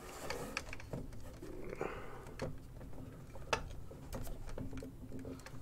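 Small clicks and taps of plastic scale-figure parts being handled and pressed together as the figure is fitted onto its base, a few sharper clicks spread through.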